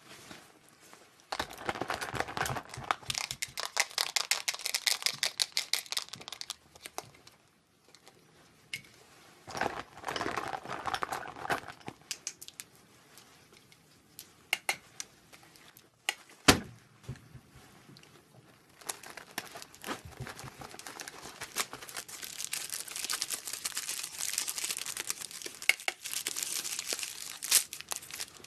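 Close-up rustling and crinkling of clothing and makeup items being handled, coming in stretches with quieter gaps between them. A single sharp click or knock sounds about sixteen seconds in.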